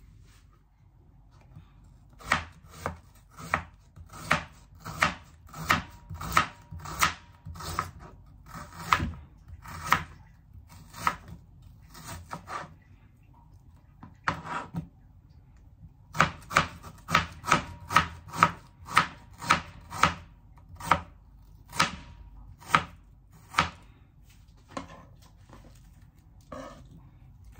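Kitchen knife chopping on a cutting board in regular strokes. There are two runs, roughly one to two strokes a second, with a pause of a couple of seconds between them; the second run is faster and louder.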